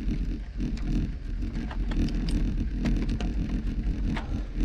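A road bike rolling along a packed-dirt trail: a steady low rumble of wind on the microphone and tyres on dirt, with scattered small ticks and rattles from grit and the bike.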